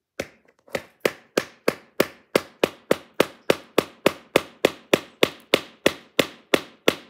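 A ceramic knife blade hacking repeatedly into hard wood: sharp, even strikes at about three a second, with one or two slower blows at the start.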